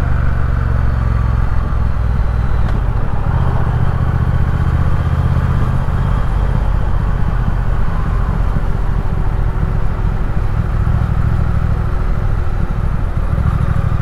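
Triumph Speed Twin's parallel-twin engine running steadily while the motorcycle is ridden along a mountain road, with wind rushing over the camera microphone.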